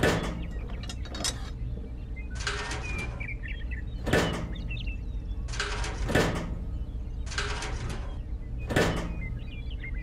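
Several sharp knocks as small toy barrels are set down in a wooden toy trailer, over a low steady hum, with birds chirping faintly.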